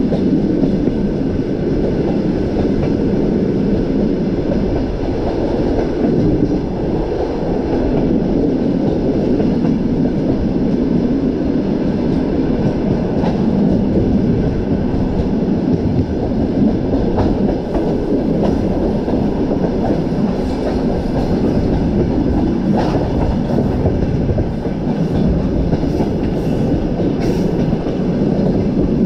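Passenger train running along the rails: a steady rumble of wheels on track, with faint light clicks joining in over the second half.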